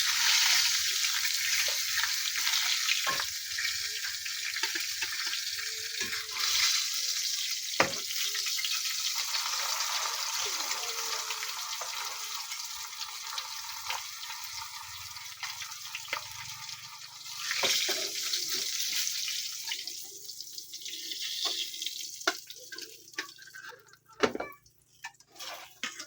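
Food sizzling as it fries in a pan, a steady hiss broken by scattered clicks and knocks. The sizzle thins out about twenty seconds in, leaving a few separate knocks.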